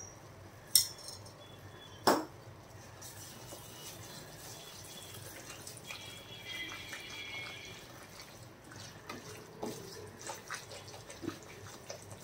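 Wheat flour sizzling as it roasts in hot ghee in a brass kadai, stirred and scraped with a wooden spatula; two sharp knocks in the first two seconds, then irregular scraping strokes that grow busier near the end.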